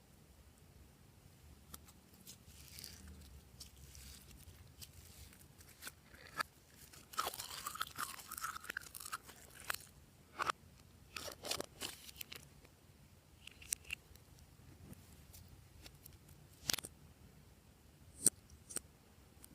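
Glossy slime being worked by hand, making scattered sticky clicks and pops with a denser crackling stretch about midway.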